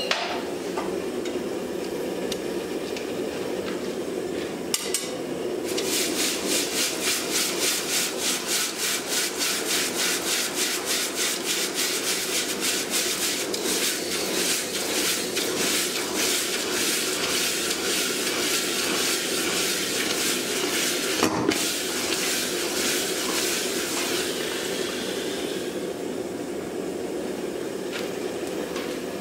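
A red-hot forged steel axe head being quenched to harden it, the liquid in the quench bucket hissing and bubbling with an even pulsing about two to three times a second. It starts about six seconds in and dies away a few seconds before the end, over a steady hum.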